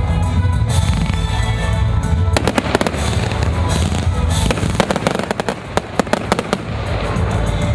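Consumer fireworks going off in quick bursts of bangs over music, with clusters of rapid reports about two and a half seconds in and again from about five seconds in.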